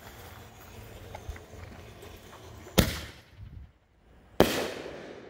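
Aerial consumer firework launching from the ground with a sharp pop about three seconds in, then bursting with a louder bang about a second and a half later, followed by a hiss that fades over about a second.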